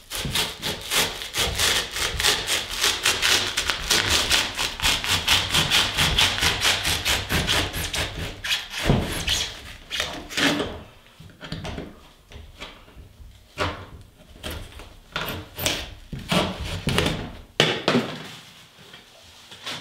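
A bare hacksaw blade, held in both hands, sawing through cured expanding spray foam that fills a hole in a hollow-core door. Fast, even back-and-forth strokes for about eight seconds, then slower, scattered strokes as the last of the foam is cut flush.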